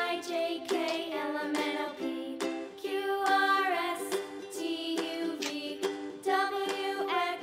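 Background music led by a plucked ukulele.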